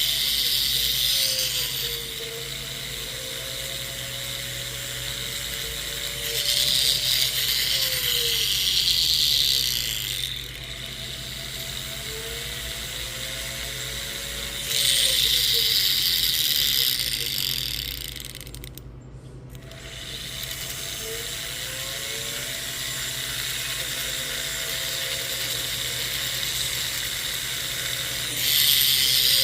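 Rotary tool spinning a silicone polishing wheel on a silver jump ring: a steady motor whine that changes speed, with several louder stretches of hissing grinding where the wheel bears on the metal. About two-thirds of the way through the motor slows almost to a stop, then spins back up.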